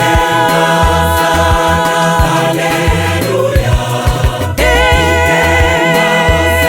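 Gospel song: a choir sings long held notes over a bass line and a drum beat. One phrase fades about halfway through and a new one begins shortly after.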